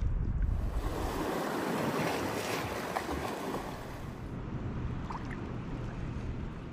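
Wind rumbling on the microphone and the rush of sea water, with no engine or voice standing out. The low wind rumble gives way to a brighter, steady rushing of water within the first second.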